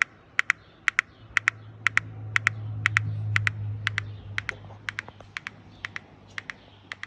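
Electronic turbo simulator making a fault noise: sharp clicks in close pairs, about two pairs a second, with a low hum that swells up and fades in the middle. It is the sound the device started making after some use.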